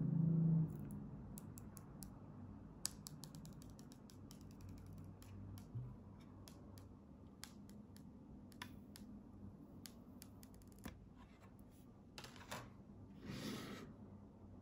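Protective liner film being slowly peeled off the adhesive side of a sapphire screen protector: a long run of faint, irregular crackles and ticks. A brief low hum sounds at the very start, and a short rustle comes near the end.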